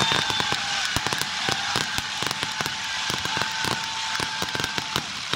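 Fireworks going off in quick succession: a dense run of sharp pops and crackling reports, with a steady high whistle held for a few seconds in the middle.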